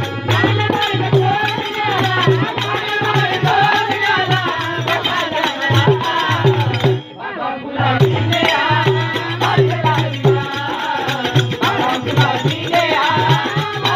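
Marathi devotional bhajan played live: voices singing over a harmonium, with a dholki barrel drum and tabla keeping a steady beat and small hand cymbals clashing in time. The music stops for a moment about halfway through and starts again.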